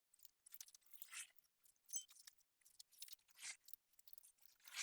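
Near silence with a few faint, scattered clicks and rustles of a tool being handled.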